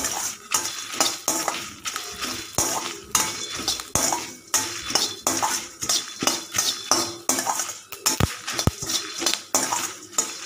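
A perforated steel ladle stirs and scrapes whole coriander seeds, dried red chillies and curry leaves around a metal kadai as they roast in a little oil for spice powder. Metal clinks and scrapes on metal repeat irregularly, two or three a second, and there are two duller knocks about eight seconds in.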